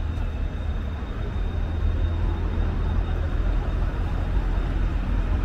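Steady city road traffic noise, a continuous low rumble with a faint steady high whine over it.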